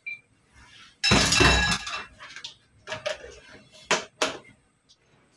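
A ceramic plate clattering against other dishes and pans, with a bright ringing, about a second in. Then a few sharp clicks as the lid of a plastic food container is pressed shut.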